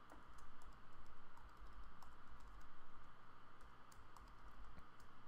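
Typing on a computer keyboard: a run of quick, irregularly spaced key clicks, with a faint low hum underneath.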